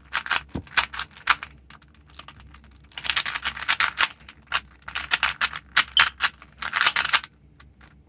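Plastic 3x3 Rubik's Cube being turned rapidly by hand, its layers clicking and clacking in quick runs with short pauses, as the last (yellow) layer is being solved. The clicking stops shortly before the end.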